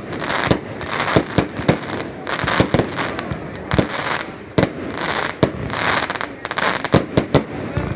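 Evolution Fireworks 'Snowstorm' firework going off: a rapid, irregular string of sharp bangs over a continuous crackling hiss.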